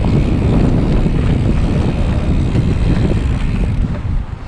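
Mountain bike riding fast down a dirt forest trail, heard from a handlebar-mounted action camera: wind buffeting the microphone over the rumble of the tyres on the dirt. The noise is loud and steady, easing slightly near the end.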